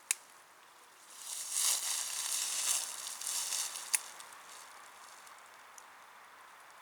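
A cat's claws scratching and scrabbling on tree bark as it climbs, a scratchy crackle lasting about three seconds. There is a sharp click just before it and another as it stops.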